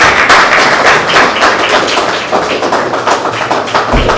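Audience applauding, dense at first and thinning out over the seconds, with a dull thump near the end.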